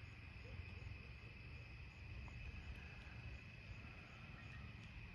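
Faint evening insect chorus, likely crickets: a steady high trill over a low rumble.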